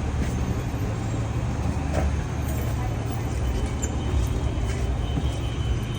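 Steady low rumble of motor vehicle engines, with a few faint clicks.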